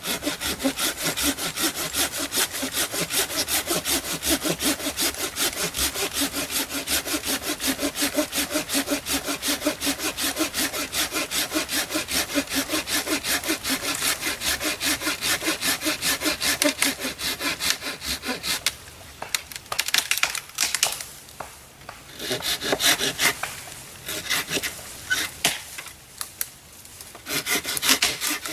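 Folding hand saw cutting through a dead tree limb in quick, even push-pull strokes, the teeth rasping through the wood. About two-thirds of the way in the steady sawing stops and gives way to shorter, irregular bouts of cutting.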